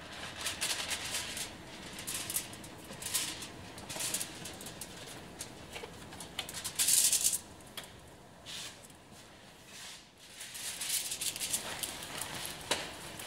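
Aluminium-foil printing plate crinkling and rustling in irregular bursts as it is handled and lifted out of a tray of cola, with the loudest rustle about seven seconds in. Near the end there is more rustling as a paper towel is rubbed over the foil plate to dry it.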